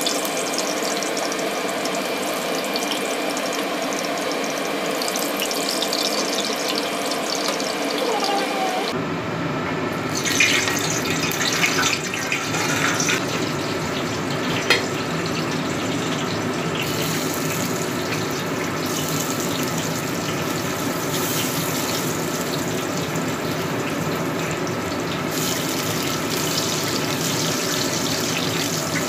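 Hot oil sizzling steadily in a frying pan as cubes of pork fat are fried to render out their fat, with a spell of sharper crackling a little after ten seconds in.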